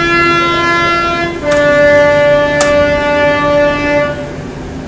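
Cops 'n' Robbers Streetwise fruit machine sounding two long electronic notes, the second a little lower and held longer, with a short click during the second note.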